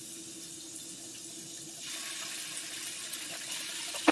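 Chicken pieces sizzling in hot oil in a frying pan, with a louder steady rush joining in about two seconds in. A single sharp clack at the very end.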